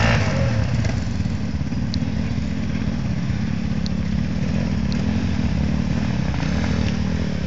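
Off-road motorcycle engine running steadily, with a few faint ticks.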